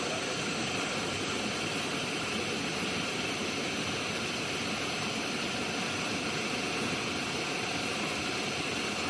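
Bean sprout washing machine running: a steady, unbroken rushing noise with a faint steady hum.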